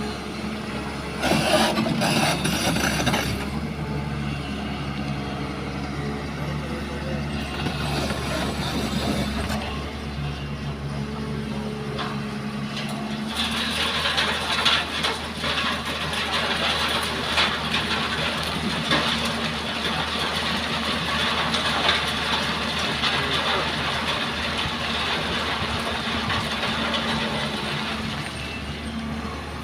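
Diesel engine of a Hyundai excavator running steadily while it works. There is a short loud noisy burst about two seconds in, and from about halfway a rougher rushing noise with crackles rides on top of the engine.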